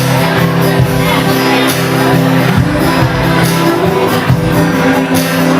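A live band playing a song through a PA: a full, loud mix of amplified instruments with regular drum and cymbal strokes, and voices in it.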